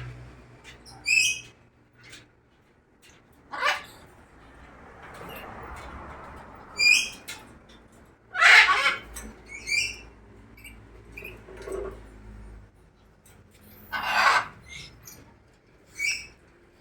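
Caged birds calling: short high chirping phrases every few seconds, with three louder, harsher calls in between.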